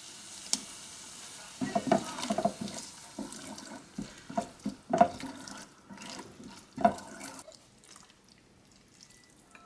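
Chopsticks stirring and tossing shrimp pasta with basil pesto in a frying pan: wet stirring noise with irregular clicks and knocks of the chopsticks against the pan. A low sizzle comes first, and the stirring dies down near the end.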